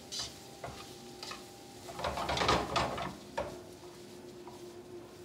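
Metal tongs clicking and scraping in a nonstick frying pan as cabbage and other vegetables are stir-fried, with a louder rush of tossing and stirring about two seconds in.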